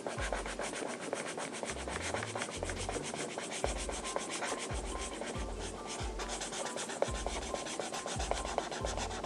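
Rapid scratchy rubbing of a colouring tool scribbling back and forth on paper while an area is being coloured in, over background music with a repeating bass line.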